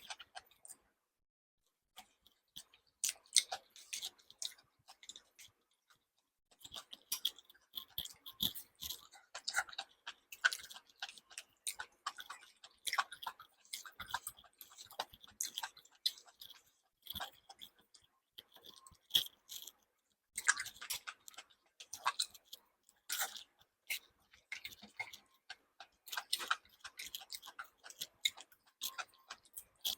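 A person eating for a mukbang: chewing with crunches and wet mouth clicks, in irregular bursts broken by a couple of short silent pauses.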